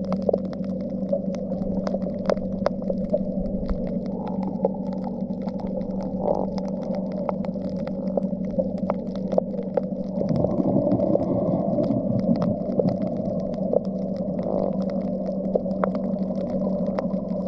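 Underwater ambience on a shallow coral reef: a steady low hum under a wash of noise, with sharp clicks scattered throughout. A low, wavering rumble swells up about ten seconds in.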